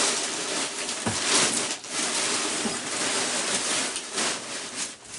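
Cardboard box and its packing rustling and crinkling as hands rummage through it, with a few light knocks.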